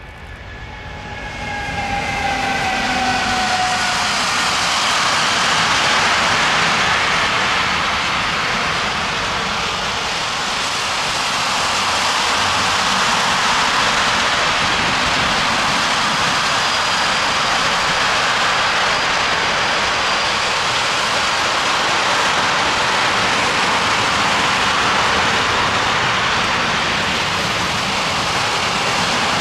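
Container freight train passing close by, growing loud over the first two seconds. A whine from the electric locomotive falls in pitch over the first few seconds, then the wagons' wheels keep up a steady rolling noise on the rails.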